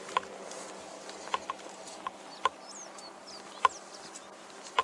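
Scattered sharp taps and clicks, about every half second to a second, from a body-worn camera and its wearer's gear as he walks along a road. A bird chirps a few times near the middle, over a steady faint hum.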